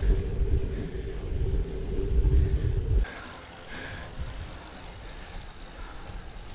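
Wind rumbling on the microphone of a camera riding on a moving bicycle, with a faint steady tone underneath. About three seconds in it drops abruptly to a quieter, softer rush.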